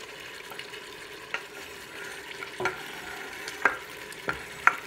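Beef browning in olive oil sizzles steadily in a stainless-steel pot as chopped onion and garlic are scraped off a wooden cutting board into it. About five sharp taps and knocks of the board and utensil come through, the loudest near the end.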